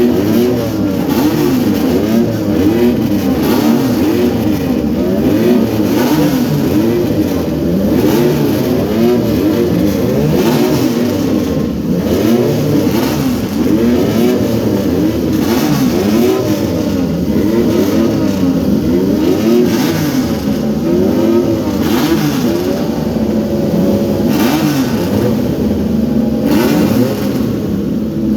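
Several Triumph three-cylinder motorcycles roar together, their throttles blipped over and over so that many engine notes rise and fall across one another without a break.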